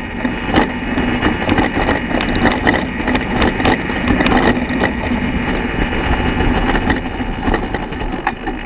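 A 2014 BMW F800GS Adventure rolling with its engine off, its front end making irregular clunks and rattles over rough ground under steady wind and tyre noise, the knocks coming thickly at first and thinning out in the last few seconds. The owner traced the clunking to damaged steering head bearings that he suspects were never properly tightened at the factory.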